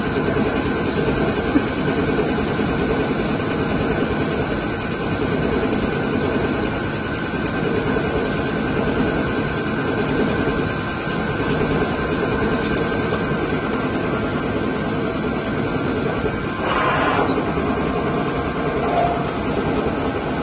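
CNC lathe running under cut: the spindle and chuck spinning a metal bar while the tool turns it and coolant sprays, a steady dense machine noise. A brief louder burst comes about seventeen seconds in.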